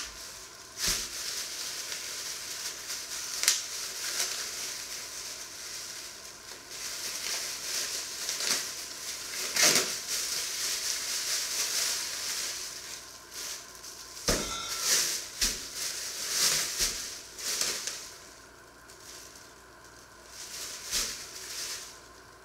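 Thin plastic bags rustling and crinkling as they are handled and pulled off a piece of meat, with several sharp crackles, quieter for the last few seconds.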